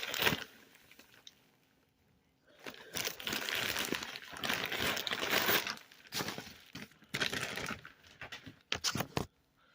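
Plastic packaging crinkling and rustling as it is handled, in several stretches starting about two and a half seconds in.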